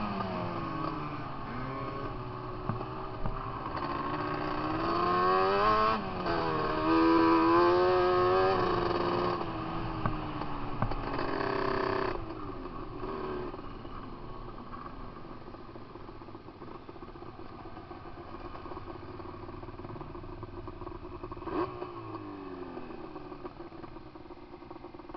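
Sport quad (ATV) engine revving up and down as it is ridden, its pitch repeatedly rising and falling. About twelve seconds in it drops to a much quieter, steadier note, with one short sharp knock near the end.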